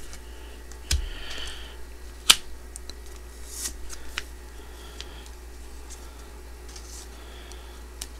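Trading cards being handled and slid into plastic card sleeves: soft sliding rustles with a few sharp clicks, the loudest click a little over two seconds in.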